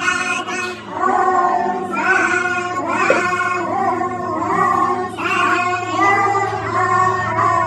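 Devotional song: singing over a steady low drone.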